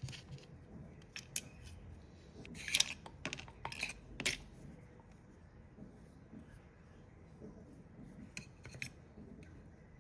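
Light clicks, taps and short scraping sounds of hand work on parts, with a cluster of them about three to four and a half seconds in and two more clicks near the end.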